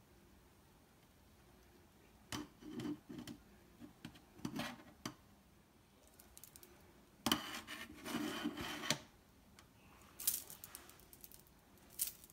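Metal mesh range-hood grease filter clinking and scraping against a stainless steel sink as it is handled and set down, in several short bursts, the longest and loudest a little past the middle.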